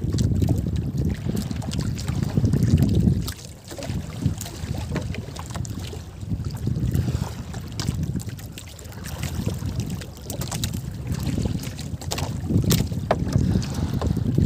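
Wind buffeting the microphone in gusts over the sea, strongest at the start and again near the end, with water lapping at a small outrigger boat and scattered light clicks and taps from handling fishing line.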